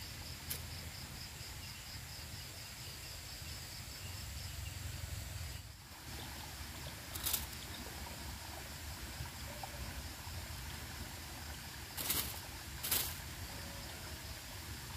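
Quiet outdoor ambience: a low steady rumble with faint hiss, an insect trill fading out in the first second, and four brief hissy noises, the last two about a second apart near the end.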